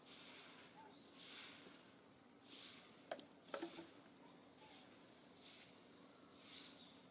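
Near silence: faint outdoor ambience with soft swells of hiss, a few faint clicks about three seconds in, and a faint thin high tone in the second half.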